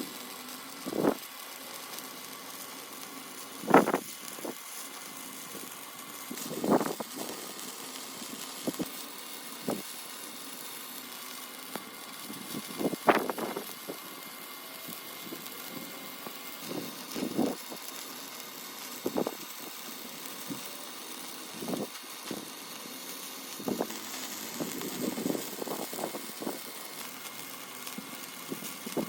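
Electric arc welding: a steady hiss of the arc broken by irregular sharp pops and crackles every second or two.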